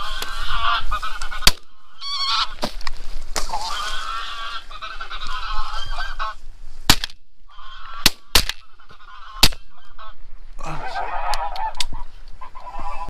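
A flock of geese honking over and over, with a few sharp cracks of semi-automatic shotgun fire among the calls, several in quick succession past the middle.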